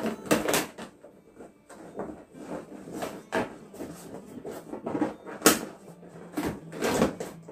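Small inflated latex balloons being handled and pressed together into a cluster: irregular rubbing and bumping noises, a few sharper than the rest.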